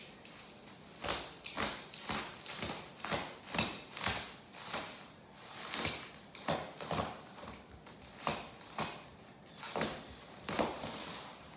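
Bubble wrap and plastic packing film rustling and crinkling as it is pulled and torn off a leather car seat, in irregular bursts one or two a second.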